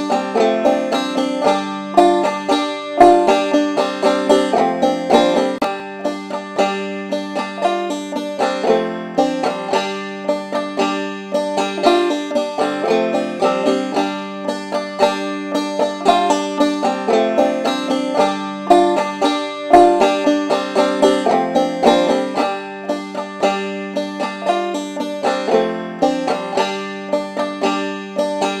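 Background music: a fast picked banjo tune, its notes plucked in a steady rapid run.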